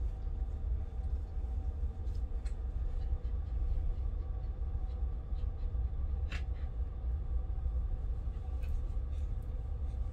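Car ferry's engines heard from inside a passenger cabin as the ship gets under way: a steady low rumble with a constant hum over it and a few faint clicks.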